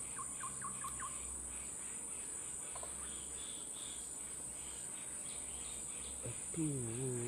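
Outdoor ambience: steady high-pitched insect chirring, with a quick run of bird chirps about a second in and fainter bird notes midway. A man's voice comes in briefly near the end.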